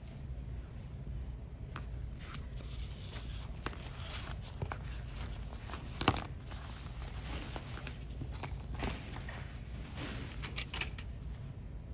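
Handling noise of a water bladder being slid into a hydration vest's zipped pocket: scattered rustling, scraping and small clicks of fabric and plastic, with one sharp knock about six seconds in and a quick run of clicks near the end, over a steady low hum.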